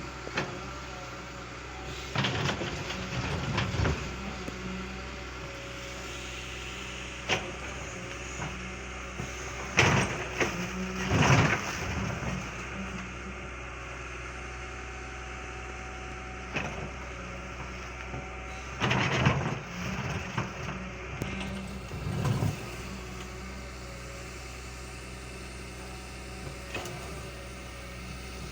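Diesel engine of a Caterpillar 320 hydraulic excavator running steadily. Several short, loud, noisy bursts break in now and then, the loudest about ten and eleven seconds in and again around nineteen and twenty-two seconds.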